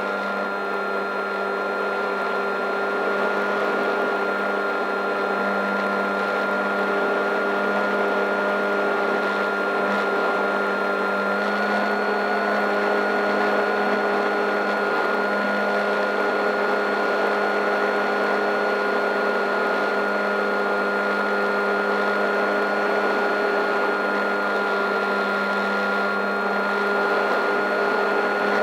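Electric motor and propeller of a Fowl Flyer foam RC plane in flight, heard from a camera on the airframe: a steady whine over a hum and a rush of noise, stepping up slightly in pitch about eleven seconds in.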